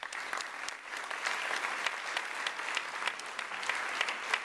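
Audience applauding: many hands clapping at once in a steady patter.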